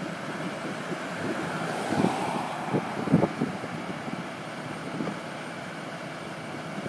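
Outdoor road noise: a vehicle engine running steadily with wind on the microphone, and a few short knocks between about two and three and a half seconds in.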